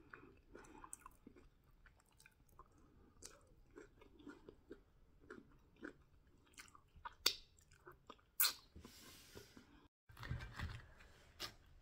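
Close-up, faint mouth sounds of someone chewing fried ripe plantain and bean stew: scattered wet clicks and smacks, with a few sharper clicks and a short breathy hiss about two-thirds through. About ten seconds in, the sound drops out for an instant and a low rumble follows.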